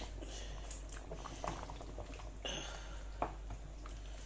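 Tomato stew simmering in a pot, bubbling and popping softly, with a couple of sharper clicks.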